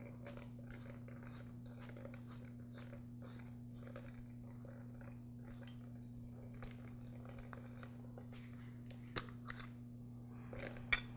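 Faint small clicks and crackles of a lawn mower carburetor being handled as its float bowl is unscrewed and lifted off, with a few sharper clicks near the end. A steady low hum runs underneath.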